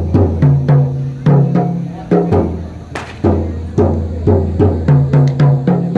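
Rebana frame drums beaten by hand in a hadroh rhythm: a quick, even run of strokes, several a second, mixing deep ringing low tones with sharper higher slaps. About three seconds in comes one brighter, sharper hit.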